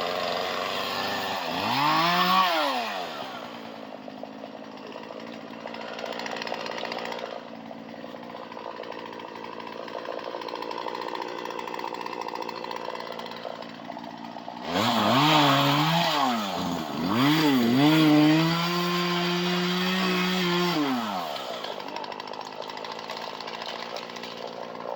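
Two-stroke chainsaw engine running between idle and throttle. It is blipped up and down about two seconds in, revved twice about fifteen seconds in, then held at a steady high pitch for about three seconds before dropping back.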